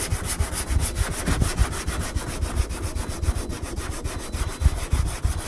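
Hand block-sanding a car body panel: coarse sandpaper on a long sanding block rubbing back and forth over the panel to find the low spots and prepare it for filler.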